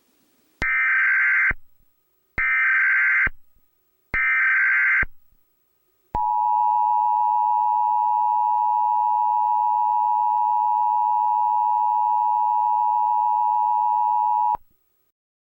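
Emergency Alert System tones: three one-second bursts of the digital SAME header, then the steady two-tone EAS attention signal (853 and 960 Hz) held for about eight seconds before it cuts off abruptly.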